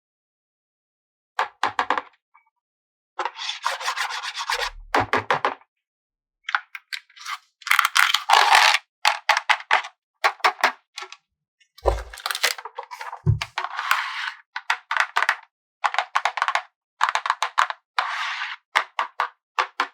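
Toy packaging being handled and opened: crinkling, rubbing and scraping in short bursts of rapid clicks, with a couple of dull thuds and dead silences between the bursts.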